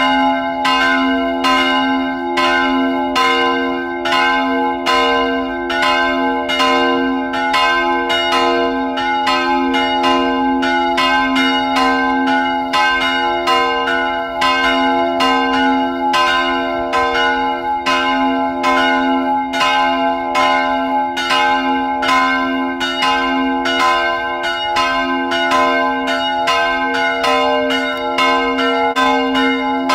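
Church bell ringing for the service, struck evenly about twice a second, its tone ringing on between strikes.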